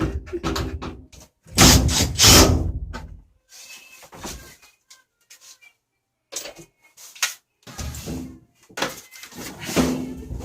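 Knocks, clicks and scraping from tools and the plastic casing of a top-loading washing machine as a rear screw is undone. The loudest clatter comes about two seconds in, with a brief pause about five seconds in.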